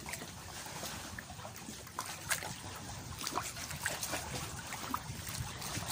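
Shallow seawater lapping and trickling over rocks and seaweed at the water's edge, with many small splashes and drips.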